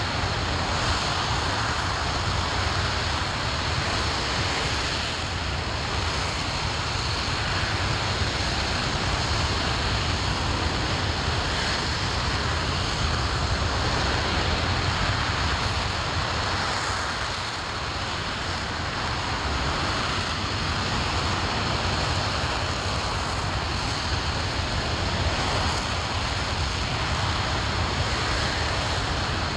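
RS-25 liquid-fuelled rocket engine firing on a ground test stand: a steady, unbroken roar.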